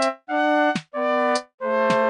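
Music: a synthesizer-like melody of held notes, about three per second, each ending in a quick downward pitch drop.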